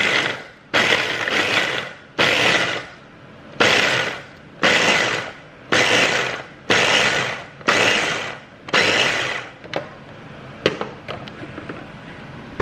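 Ninja food chopper pulsed about nine times in bursts of under a second each, roughly one a second, its blades chopping green chillies, bird's-eye chillies and garlic into a coarse paste. A few light knocks follow near the end.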